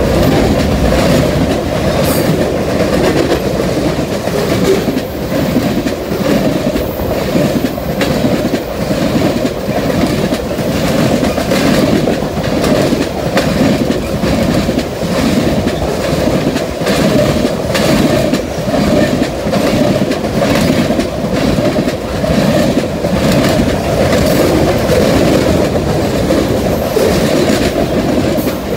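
Freight cars of a fast-moving mixed freight train (covered hoppers, then tank cars) passing close by: a loud, steady rumble of steel wheels on rail with a rapid, rhythmic clickety-clack.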